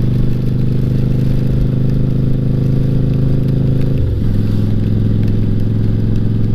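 Yamaha V-Star 1100 Classic's air-cooled V-twin engine running steadily under way, its note dipping briefly about four seconds in before settling again.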